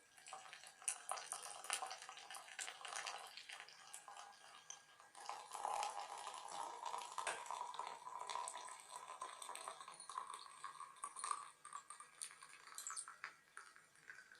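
Freshly boiled ginger, cinnamon and clove tea poured from a pot into a teapot: splashing and dripping at first, then a steady pour whose pitch slowly rises as the vessel fills, stopping a few seconds before the end.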